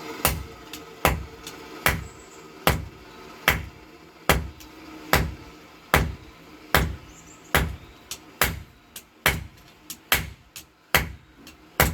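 Hand hammer striking steel rebar on an anvil in a steady rhythm, about one heavy blow every 0.8 seconds, while forging a pair of tongs. From about the middle on, lighter strikes fall between the heavy blows.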